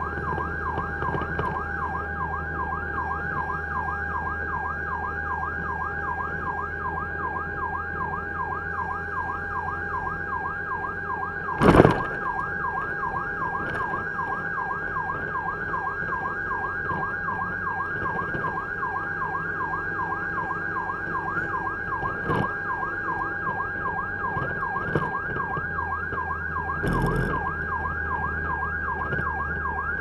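Fire truck's electronic siren sounding a fast, evenly repeating yelp, over a steady low engine hum, heard from inside the cab. A loud brief noise cuts across it about twelve seconds in, with a couple of smaller ones later.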